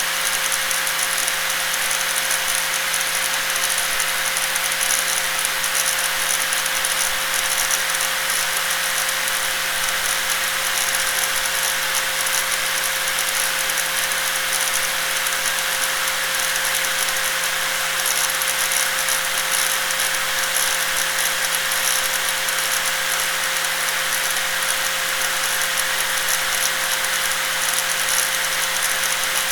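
Electric angle grinder running steadily, a constant whine over a dense hiss.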